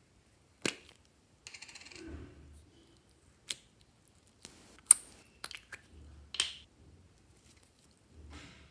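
A small plastic slime pot being opened and emptied: a sharp plastic click as the lid comes off, a brief rustle, then a series of sharp sticky clicks and pops as clear glitter slime is pulled out of the cup.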